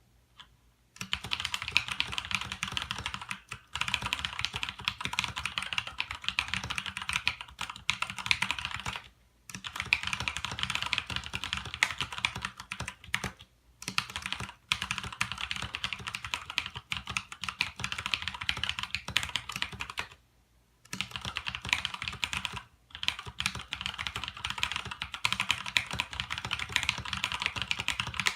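Fast typing on a DREVO Tyrfing mechanical keyboard with brown switches and thick PBT keycaps: dense runs of key clacks starting about a second in, broken by several short pauses.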